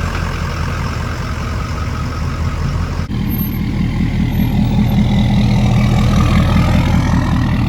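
Pickup truck engine running steadily with a low even hum. About three seconds in the sound cuts and comes back a little louder and fuller.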